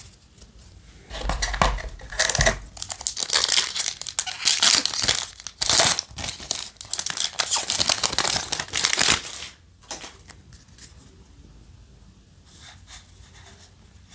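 Foil Yu-Gi-Oh! booster pack wrapper being torn open and crinkled for about eight seconds, followed by softer rustling as the cards are handled.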